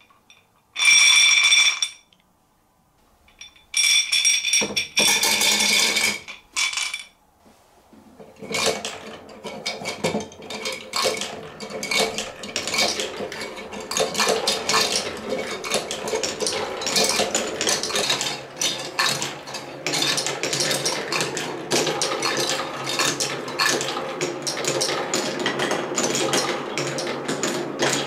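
Many marbles rolling and clattering through a wooden Quadrilla marble run, a dense stream of clicks and rattles that sets in about eight seconds in and keeps going. Before that, a few short, loud rattling bursts.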